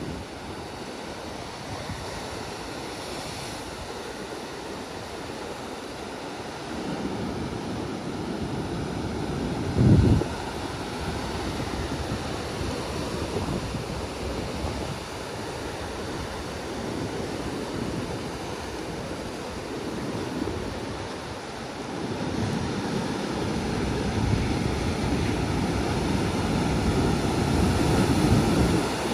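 Ocean surf breaking and washing up the beach, with wind on the microphone. There is a brief loud low thump about ten seconds in, and the surf grows louder over the last several seconds.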